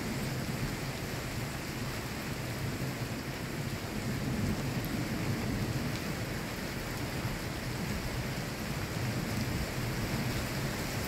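Thunderstorm: steady rain with a low rumble of thunder that swells a little about four seconds in.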